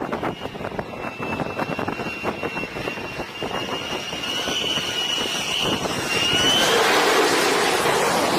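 Jet aircraft engine whining, its pitch creeping slightly upward, then a louder rush of engine noise comes in near the end.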